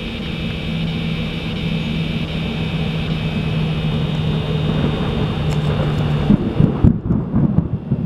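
A steady low hum of highway traffic and a continuous high insect buzz. About six seconds in, loud bumping and rustling of the camera being handled as a lens hood is fitted, and the buzz cuts off.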